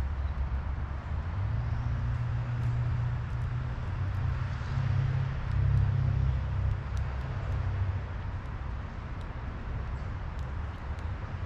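Low rumble of a vehicle engine, swelling through the middle and easing off near the end, as a vehicle passes.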